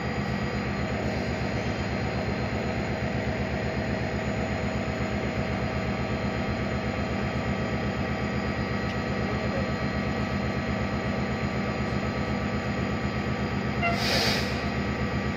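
A train's engine idling steadily, a regular low pulsing with a steady hum and whine over it. A short hiss of air cuts in near the end.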